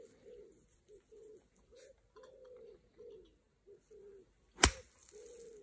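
A golf iron chipping a ball out of long rough grass: one sharp club strike about four and a half seconds in. A bird coos low and repeatedly before and after the strike.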